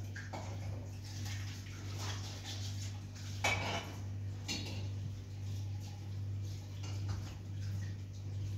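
Kitchenware clattering: a handful of separate clinks and knocks, the loudest about three and a half seconds in, over a steady low hum.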